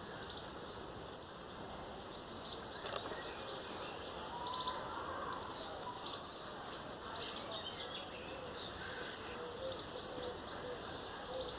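Faint garden background with small birds chirping now and then, and a single faint click about three seconds in.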